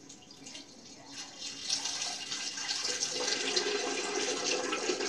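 Water running in a small tiled bathroom, a steady rushing hiss that grows louder about a second and a half in.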